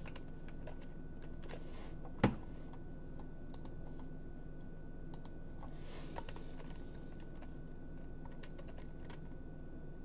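Computer keyboard keystrokes, scattered single presses and short clusters with one louder key strike about two seconds in, over a steady low hum.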